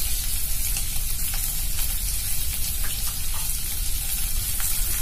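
Chopped onions sizzling in hot oil in a metal kadhai, stirred with a slotted metal spoon that clicks against the pan a few times.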